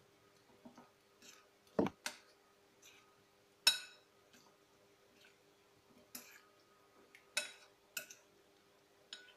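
Hands mixing paneer cubes into a thick yogurt marinade in a glass bowl: irregular clicks and taps against the glass, the sharpest a little under four seconds in, with a duller knock near two seconds.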